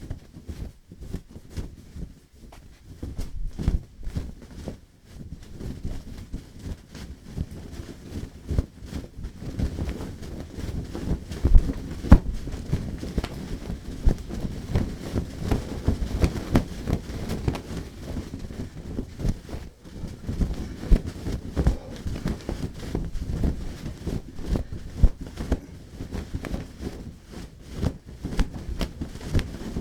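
A bath towel being shaken and flapped, giving an irregular run of soft whooshes and rustles with sharper snaps now and then, the loudest about a third of the way through.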